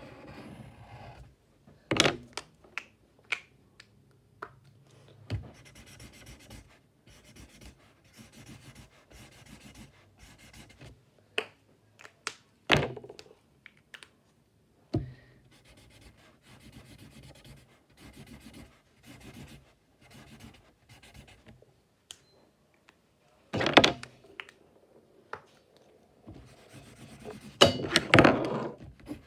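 Pencil scratching on paper during quick sketching, broken by scattered knocks and thunks of hands and objects on the table, with louder ones about two seconds in, midway, and a cluster near the end.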